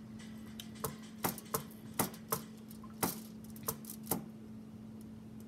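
About eight sharp, irregular clicks and taps as seafood is handled in a glass serving bowl, over a faint steady hum.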